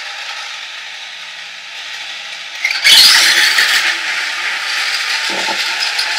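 Radio-controlled toy car's drive motor and gears whirring as its wheels spin, a steady whirr that grows much louder about three seconds in.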